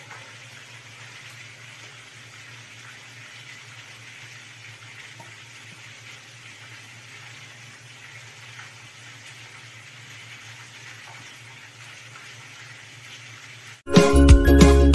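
Faint, steady sizzling hiss of hot pan sauce being poured over chicken, with a low steady hum underneath. Loud, upbeat music starts abruptly near the end.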